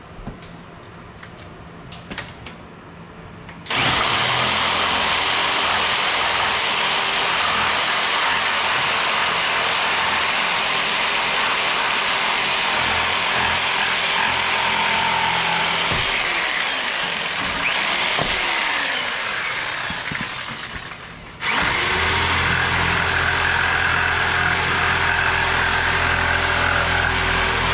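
A few light clicks, then a loud machine starts about four seconds in and runs steadily. It cuts out a little past twenty seconds and starts again straight away with a steadier, humming drone.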